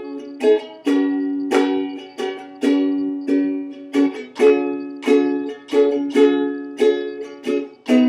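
Ukulele strummed in a steady rhythm of chords, about two strums a second, as an instrumental passage without singing.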